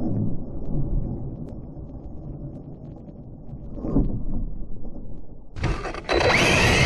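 Arrma Mojave RC truck running and tumbling on grass, heard through a GoPro mounted on its side and slowed down: a deep, muffled rumble with a thump about four seconds in. Shortly before the end it jumps suddenly to a loud, full-range noise with a steady high whine.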